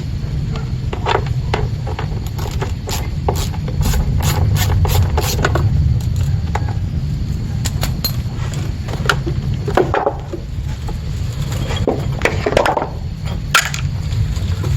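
Plastic parts of a truck HVAC box being handled and worked apart by hand: scattered clicks, taps and scrapes, over a steady low rumble.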